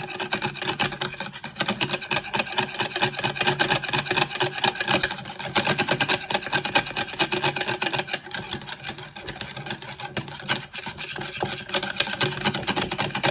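Wire balloon whisk beating egg-yolk mayonnaise in a plastic bowl: a fast, continuous run of clicking and scraping as the wires strike and rub the bowl.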